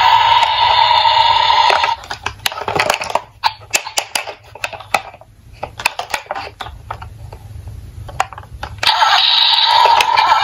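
Toy police car's electronic siren playing loudly through its small speaker, cutting off about two seconds in. Then clicks and knocks of the hard plastic toy cars being handled, until the toy's electronic sound starts again loudly near the end.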